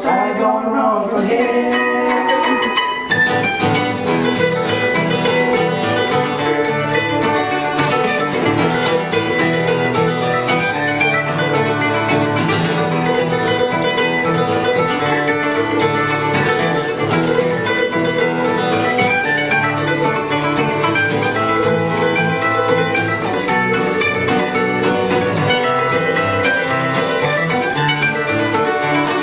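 Mandolin and acoustic guitar playing an instrumental break together, with busy picked notes throughout.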